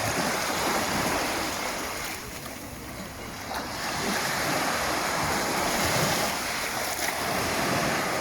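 Black Sea surf washing onto the shore, rising and falling with the waves: a lull about two seconds in, then building again.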